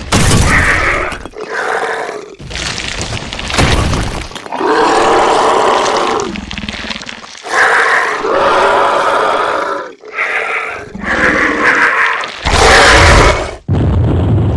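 Edited-in monster roar and growl sound effects for computer-generated giant worm creatures: a string of loud roars, each one to two seconds long. Near the end an explosion sound effect follows as a loud burst with a low rumble.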